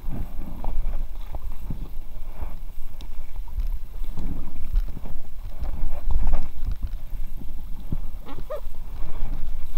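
Inflatable kayak being paddled: irregular paddle splashes and knocks against the hull over a constant low rumble on the microphone, with a brief squeak near the end.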